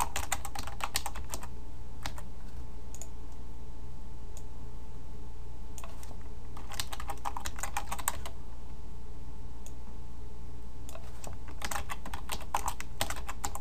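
Typing on a computer keyboard in three short flurries of keystrokes with pauses between them, over a steady low hum.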